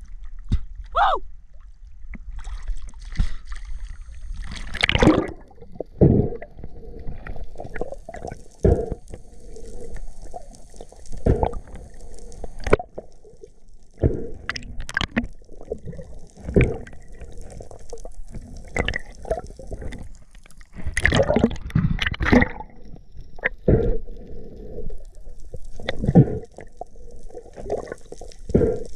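Water gurgling and sloshing, with irregular sharp clicks and knocks throughout and a faint hiss at times.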